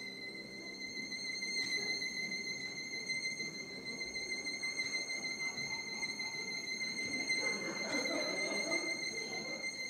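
Faint, fluttering crowd noise from a theatre audience, swelling near the end, under a steady high-pitched whistling tone with overtones.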